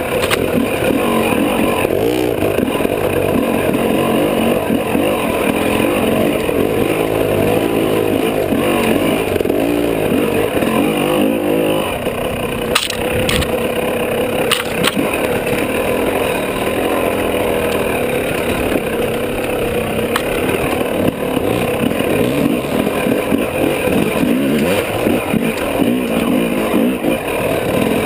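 Dirt bike engine running under the rider, revving up and down over rough off-road ground, with a couple of sharp knocks from the bike about halfway through.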